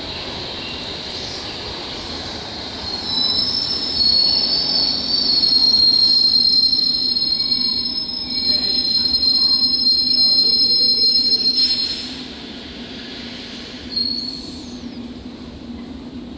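London Underground S stock train running into the platform and slowing to a stop over a steady rumble. From about three seconds in a loud, high-pitched squeal rings out. It cuts off about twelve seconds in as the train halts, and a short squeal follows a couple of seconds later.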